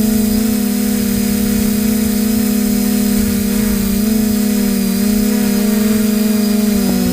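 A steady machine hum: a strong low drone with several higher tones above it that waver slightly in pitch.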